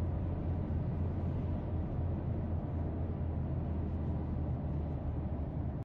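Steady low rumble of a car driving at highway speed, heard from inside the cabin: tyre and engine noise with no change in pace.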